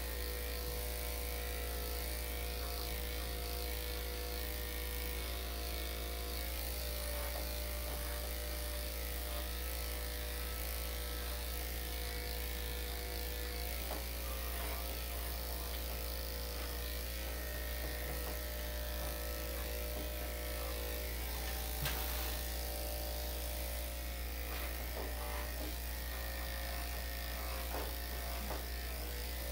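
Electric dog grooming clippers fitted with a #5 blade, running with a steady buzz as they trim a dog's coat. One sharp click about three-quarters of the way through.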